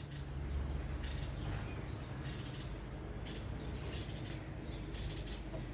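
Songbirds chirping in short, scattered calls over a steady low background rumble.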